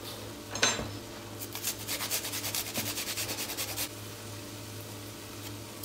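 Garlic being grated on a fine stainless-steel hand grater over a pot: a brief knock, then a quick run of even rasping strokes, about eight a second, that stops a little before the end. A low steady hum runs underneath.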